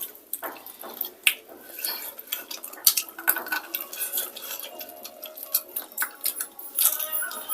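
Utensils clinking and scraping against dishes in a run of irregular, sharp clinks.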